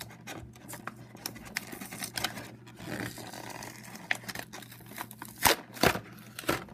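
Clear plastic blister pack being pried and peeled off its cardboard backing card: crinkling, crackling plastic with tearing, and two loud sharp snaps near the end as the blister comes free.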